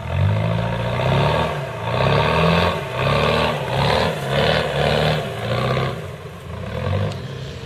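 Off-road 4x4's engine revved hard in repeated surges under heavy load as it claws its way out of a deep mud hole, easing off about six seconds in.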